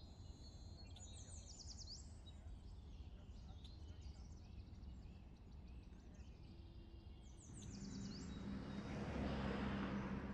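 Faint bird chirps, two quick runs of them, over a low steady background hum. From about three-quarters of the way in, a broad rushing noise swells up.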